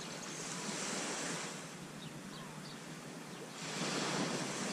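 Small sea waves breaking and washing up a sandy beach, swelling twice.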